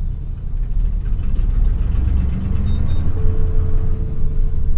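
Nissan Diesel RF8 V8 diesel engine of a city bus running under load, heard from a rear seat inside the cabin as a deep, steady rumble coming up through the floor. A steady higher tone joins it for about the last second and a half.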